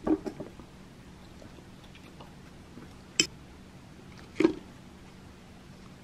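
Cutlery knocking and clicking against dishes: a quick cluster of taps at the start, a sharp click about three seconds in, and another knock about a second later, over a faint steady low hum.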